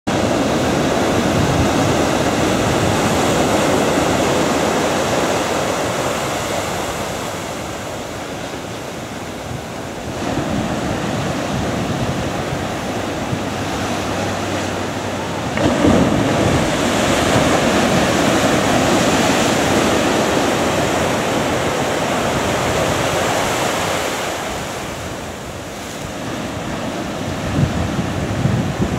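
Ocean surf washing and breaking, rising and falling in long swells, with wind gusting on the microphone and a few low buffets near the end.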